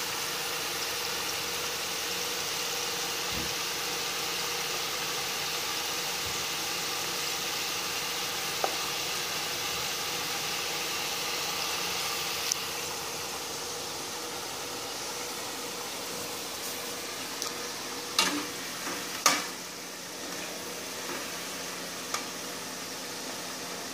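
Potato fries deep-frying in hot oil in a kadai, a steady sizzle as they turn lightly golden. A few sharp clinks of the metal slotted spoon against the pan near the end.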